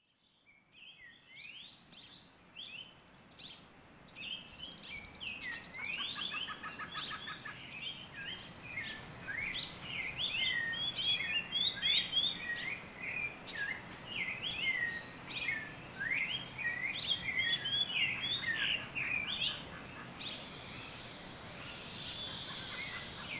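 A chorus of many birds calling over one another in short, quick chirps and whistles, fading in over the first couple of seconds. Near the end the birds thin out and a steady high insect hiss takes over.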